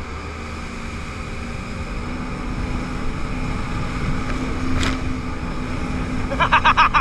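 Yamaha WaveRunner jet ski running at speed: a steady engine drone over the rush of spray and wind. A single sharp tap comes about five seconds in.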